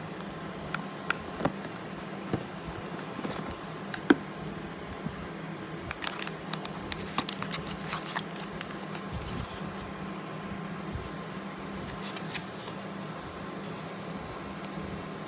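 Scattered light clicks and taps of small objects being handled, the sharpest a few seconds in and a cluster in the middle, over a steady low hum.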